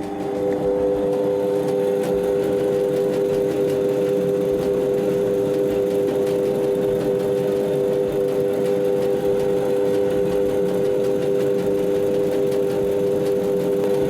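Yoshida Seisakusho W250 jaw crusher running steadily: a constant mechanical hum with a steady whine.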